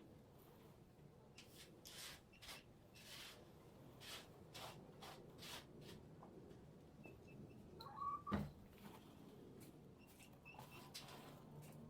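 Faint scratchy strokes, about a dozen in the first six seconds, from cleaning a chicken cage. About eight seconds in come a brief chirp and a single sharp knock, the loudest sound.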